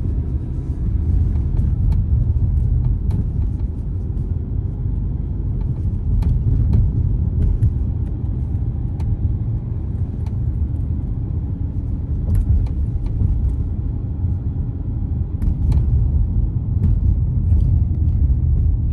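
Steady low road and engine rumble of a 2021 Mazda CX-5 on the move, with sharp little ticks or clicks at irregular intervals.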